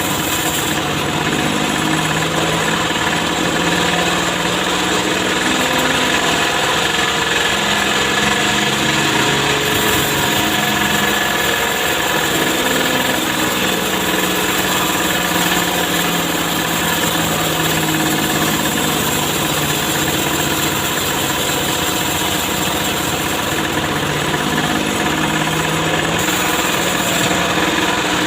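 An engine running steadily, its pitch wavering slightly without clear revving.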